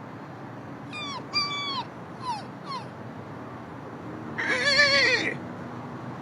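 A person's imitation of a cat: four short high mews that fall in pitch, then about four seconds in one longer, lower meow with a wavering pitch.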